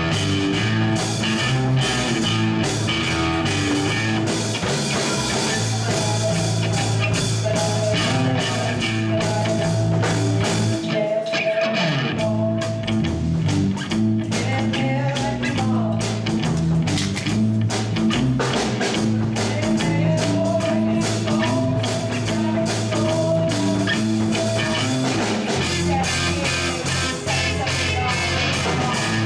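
Live rock band playing: electric guitar, bass guitar and drum kit, with saxophone, and trumpet near the end. The bass and low drums drop out briefly about eleven seconds in, then come back.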